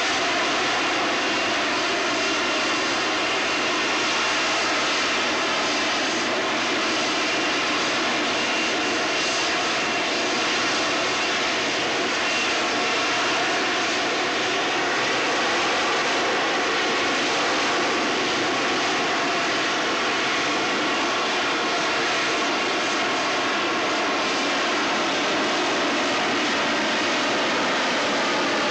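AV-8B Harrier II jump jet hovering on its vectored thrust: its turbofan runs at high power with a steady rush and a faint whine over it, unchanging throughout.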